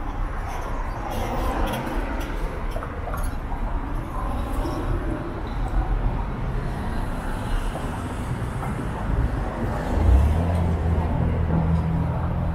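Downtown street ambience: traffic noise with faint voices of passers-by, and a low engine hum that comes in about ten seconds in, as from a vehicle idling or pulling past.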